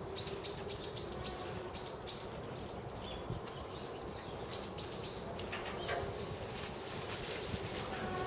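Birds tweeting: quick runs of short, high chirps that rise and fall, a rapid string of about eight in the first two seconds and another short string about four and a half seconds in.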